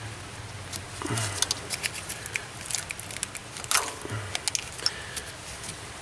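Irregular small plastic clicks and taps as ignition-coil electrical connectors are unlatched and pulled off the coils of an engine that is switched off, with a few soft knocks from handling parts, against a light patter of rain.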